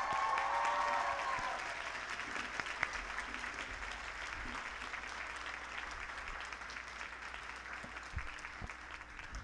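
Audience applauding, the clapping strongest at first and slowly dying away.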